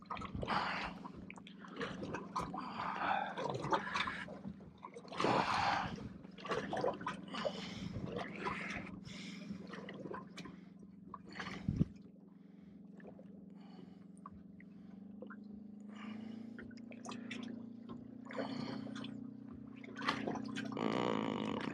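Water trickling and splashing in irregular bursts over a steady low hum, which grows stronger about two-thirds of the way through, with one sharp knock midway.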